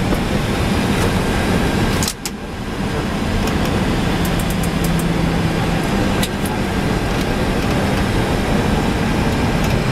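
Cockpit noise of an Airbus A320-214 rolling along the runway after landing: a steady rush of engine and air noise with a low hum. About two seconds in there is a click and the noise briefly drops, then it picks up again.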